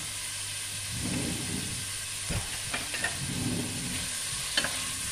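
Diced onion sizzling as it sautés in oil in a stainless steel pot, a steady frying hiss. From about two seconds in, a spoon stirs it and clicks and knocks a few times against the pot.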